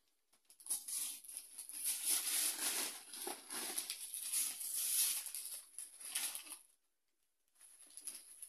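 Gift wrapping paper being torn and crinkled as a present is unwrapped: a long stretch of crackling rustle that pauses briefly near the end, then starts again.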